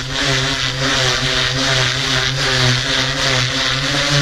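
Radio-controlled model helicopter running in flight: a steady motor-and-rotor drone with a slight pulsing, holding speed.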